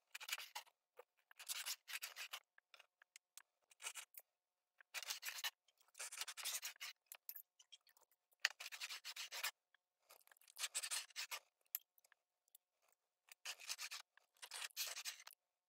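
Chef's knife sawing through a seared duck breast and its crisp skin onto a bamboo cutting board, in a series of short slicing strokes with brief pauses between them.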